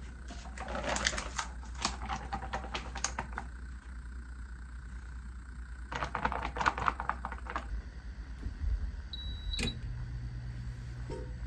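Rapid clicking and crackling of a plastic-wrapped food tray being handled, in two spells. Then short electronic beeps as the touch controls of an induction cooktop are pressed, and a low steady hum starts after the first beep.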